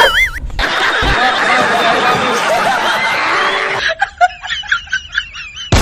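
Laughter: a dense burst of many voices laughing for about three seconds, then, after an abrupt switch near the end, a lighter snickering laugh.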